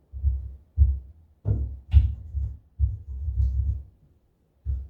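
A string of dull, low wooden thuds and bumps, irregular, with one sharper knock about two seconds in: the timber sides of a hive brood chamber being handled and set down on the bench.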